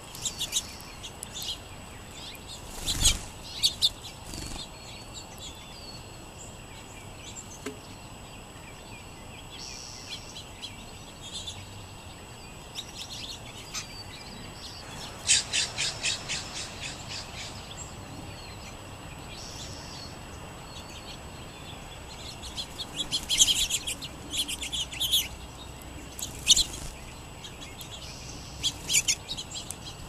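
Small songbirds chirping in scattered bursts, with a quick run of repeated notes about halfway through and a cluster of chirps near the end. A thump about three seconds in.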